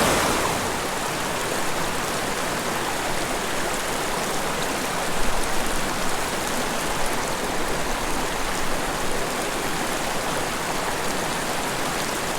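A small mountain creek flowing, a steady, even rush of water.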